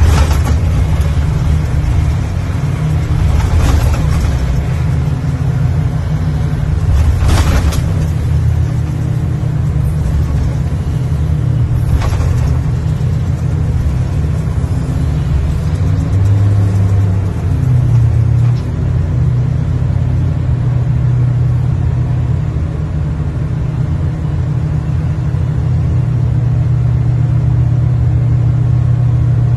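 Heavy crane's diesel engine running steadily under load, heard from inside the operator's cab, with four sharp knocks in the first dozen seconds. The engine note steps up a little just past halfway as the grab is worked.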